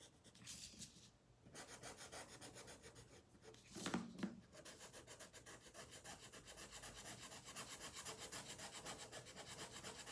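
Felt-tip marker rubbing on paper in quick back-and-forth coloring strokes, several a second, with one brief louder sound about four seconds in.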